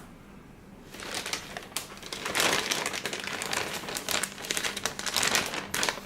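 Plastic wrapping crinkling and crackling as it is handled and pulled off by hand, starting about a second in.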